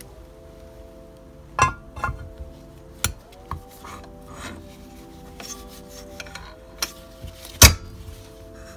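Sharp metal clinks and knocks as a CVT primary pulley wrapped in its metal belt is set into the aluminium transmission casing: a handful of separate hits, the loudest near the end. Background music with held notes plays underneath.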